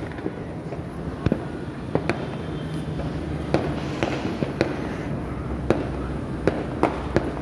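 Fireworks and firecrackers going off across a city: scattered sharp bangs at irregular intervals, roughly one or two a second, over a continuous rumble of further explosions.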